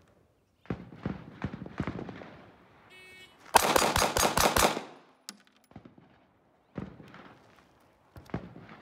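Kahr P380 pocket pistol in .380 ACP fired in a rapid string of about six shots lasting just over a second, a bill drill. A short electronic beep comes just before the first shot.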